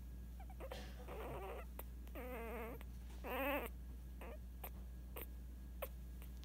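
An 8-day-old Scottish Terrier puppy whimpering: a few short, wavering squeaks, the third and loudest a little past the middle, with faint clicks between them.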